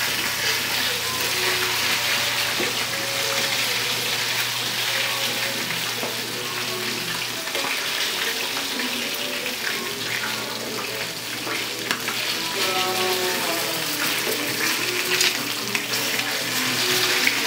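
Chicken pieces sizzling steadily as they fry in hot oil in a pan, with a few light clicks of metal tongs turning them in the second half.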